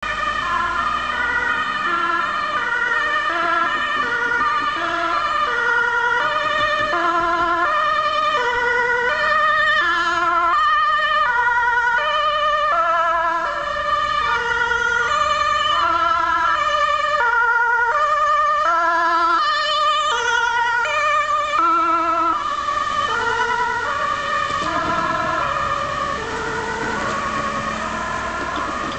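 Dutch ambulance's two-tone siren sounding on an urgent run, stepping evenly between a high and a low note. It grows fainter over the last several seconds as the ambulance moves away.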